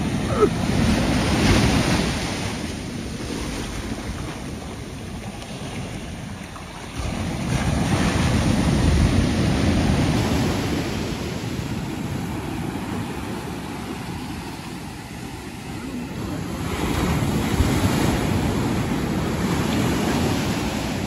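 Ocean surf breaking and washing up a beach, a steady rushing noise that swells and eases. It is loudest about two seconds in, again from about seven to ten seconds in, and again near the end.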